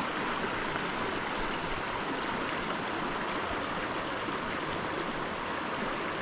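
Small mountain creek rushing steadily over a shallow riffle: a constant, even water noise.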